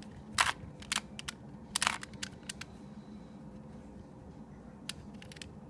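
2x2 Rubik's Cube being turned by hand: a scatter of short plastic clicks, several in the first three seconds and one more near the end.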